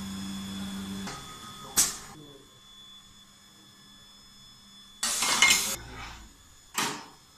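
A steady machine hum that stops about a second in. Then metal clanks of steel keychain molds being handled at the press: one sharp clank, a louder clatter about five seconds in lasting under a second, and another sharp clank near the end.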